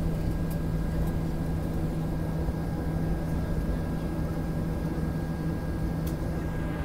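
Jet airliner cabin noise while the plane rolls along the ground after landing: the engines' steady hum over an even low rumble, with a faint steady high whine.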